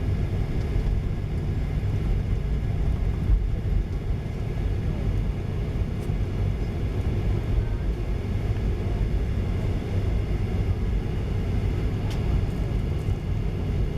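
Steady low cabin rumble aboard a Boeing 737-900ER moving out for departure, its CFM56 engines running without spooling up.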